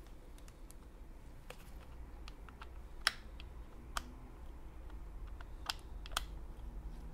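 Scattered light clicks and taps of a blade being fitted into a Makita 4329 jigsaw's blade holder, with a few sharper clicks about three and four seconds in and twice near the end.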